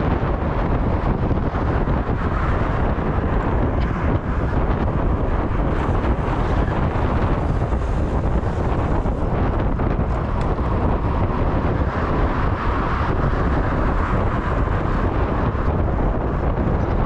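Wind rushing over the microphone on a moving motorcycle, with the steady drone of the engine and road underneath at cruising speed.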